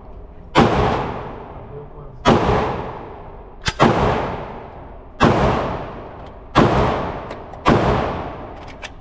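A string of six gunshots, about one every one and a half seconds, each followed by a long echoing decay. A few faint clicks come near the end.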